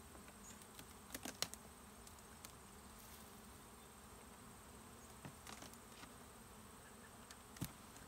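Honeybees buzzing around an opened hive, a faint steady hum, with a few sharp clicks and cracks about a second in, around five seconds in and near the end as the propolis-glued hive boxes are worked loose.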